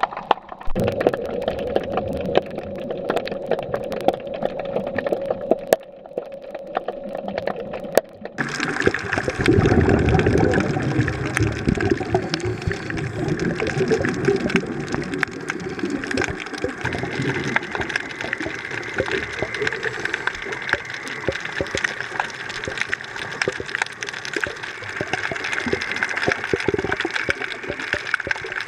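Underwater ambience: dense crackling clicks over a watery hiss. It changes abruptly about eight seconds in, with a louder low rumble from about nine to eleven seconds.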